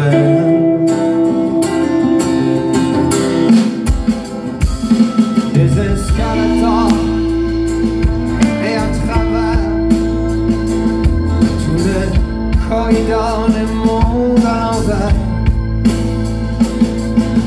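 Live band music: a sung word held over strummed acoustic guitars, then bass and drums come in about five seconds in and the band plays an instrumental passage with a steady beat.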